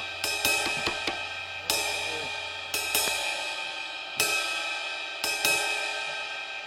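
Background music with crash cymbals struck several times, each ringing out over sustained tones.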